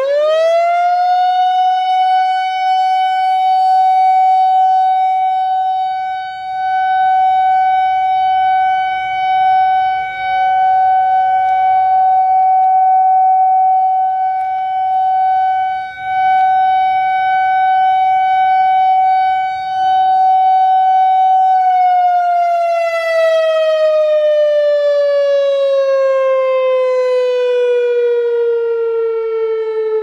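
Whelen WPS-4004 electronic warning siren, driven by an analog ESC-864 tone generator, sounding its steady alert tone. The tone rises to pitch in about a second and holds for about twenty seconds, swelling and dipping as the rotating horn array turns. It then winds down in a slow falling glide.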